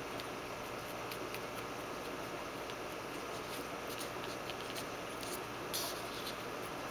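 Faint ticks and light scrapes of a wooden craft stick spreading thick black epoxy over an aluminum panel, over a steady background hiss, with a slightly sharper tick about six seconds in.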